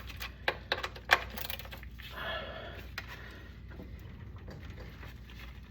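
A 14 mm socket wrench clicking and clinking on a car's oil drain plug as it is worked to loosen it. There are a handful of sharp metallic clicks in the first second or so, then quieter scraping and rustling.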